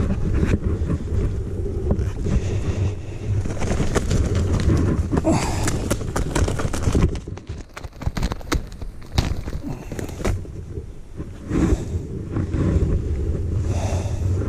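Wind buffeting the microphone while someone walks, with footsteps crunching through grass and dry leaf litter. About halfway through the wind rumble eases and the crackle of steps in the leaves stands out.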